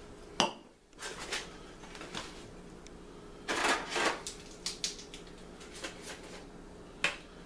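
Clicks, taps and rustling of plastic tubs and spice bottles being handled on a kitchen counter. A sharp click about half a second in is the loudest, followed by scattered short taps and rustles.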